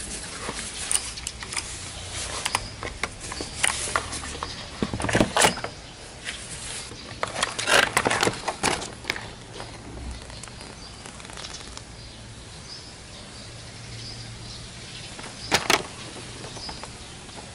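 Handling noise from opening the keyboard's packaging: irregular crackling, rustling and clicks, in clusters about five, eight and fifteen seconds in.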